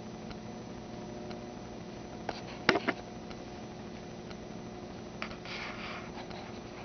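Steady low electrical hum of room tone, broken by a few sharp clicks a little over two seconds in, the loudest of them near the three-second mark, then another click and a short rustle past the five-second mark.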